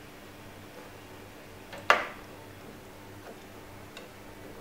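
A single sharp click about two seconds in, followed by a couple of faint ticks: a Corsair DDR3 RAM module being pressed into a motherboard slot and snapping into place.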